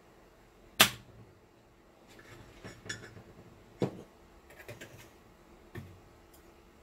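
Small hand tools clicking and tapping on an electronics workbench during desoldering: one loud sharp click about a second in, then a few lighter clicks and ticks.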